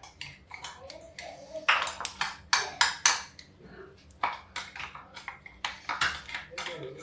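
Metal spoon scraping and tapping inside a steel mixer-grinder jar, knocking coarsely ground spice mix out onto a plate: a run of sharp metallic clinks and knocks at uneven intervals.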